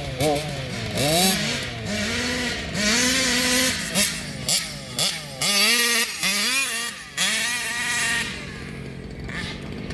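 Two-stroke RC car engine revving up and down over and over, its pitch rising and dropping in quick sweeps as the throttle is worked, then settling lower near the end.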